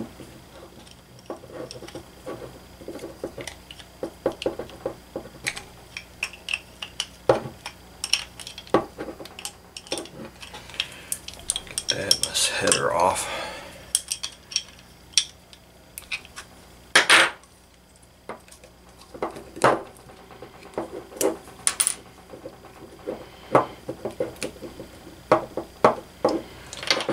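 Metal clinking, tapping and knocking as an adjustable wrench and small parts are handled against a model four-stroke glow engine, with a longer scrape around the middle and a sharper knock a few seconds after it.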